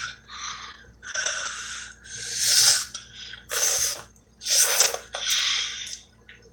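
A child slurping noodles: about six short hissing slurps, the loudest about halfway through.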